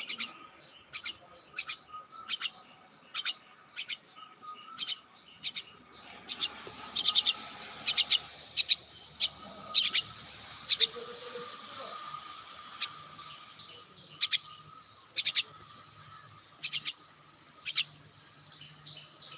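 A bird calling with short, sharp, high chirps, repeated about once or twice a second, some in quick pairs.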